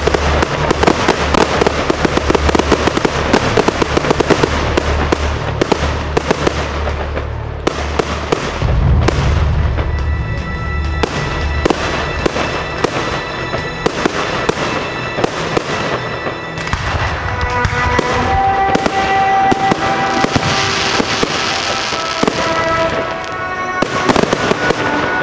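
Aerial fireworks bursting and crackling in rapid succession with a low rumble, densest in the first eight seconds and thinning to scattered bangs afterwards. Music plays alongside and comes through more clearly in the second half.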